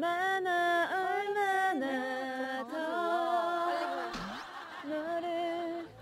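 Young women singing an improvised celebratory song a cappella in Korean, teasing lyrics to the effect of 'how much, how much more, write quickly'. The long held notes slide up and down, with two voices at times, and the singing stops near the end.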